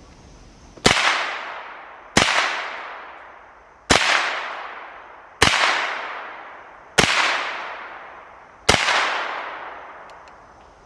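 Six gunshots fired one after another, about a second and a half apart, each trailing off in a long echo.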